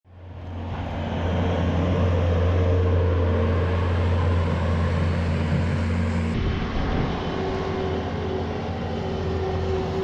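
Bobcat skid steer diesel engine running steadily with a low drone. It fades in over the first second and changes abruptly a little past six seconds, as if to a second machine.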